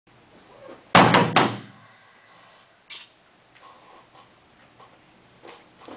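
Taiko drum struck with wooden sticks: three quick heavy hits about a second in, ringing briefly, followed by a single short sharp click near the three-second mark.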